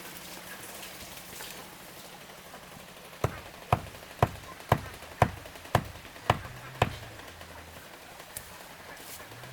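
Eight sharp knocks in an even rhythm, about two a second, starting about three seconds in, then a single fainter knock near the end.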